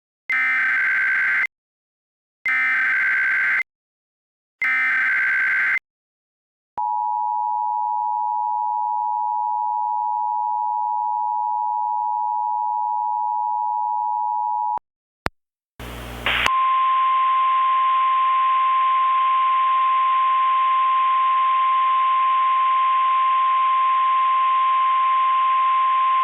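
Mock Emergency Alert System (EAS) alert tones. First come three short, harsh digital data bursts, the SAME header. Then a steady two-note EAS attention tone sounds for about eight seconds, and after a click and a brief burst of noise, a single steady NOAA Weather Radio-style alert tone plays over hiss for about ten seconds. Together they announce a winter storm warning.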